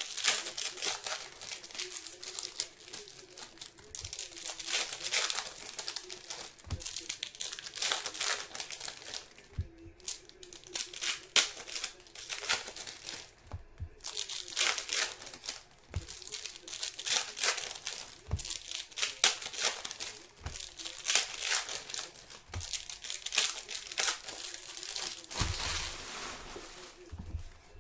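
Trading card pack wrappers crinkling and tearing as packs are ripped open and handled, in irregular bursts of crackling with a few soft thumps.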